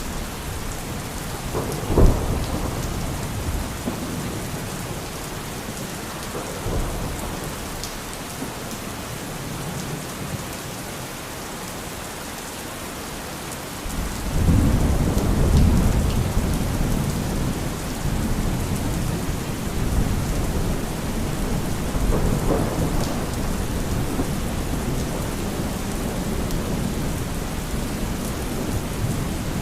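Thunderstorm: steady heavy rain with thunder, a sharp crack about two seconds in, then a long low rumble starting about halfway through and swelling again a little later.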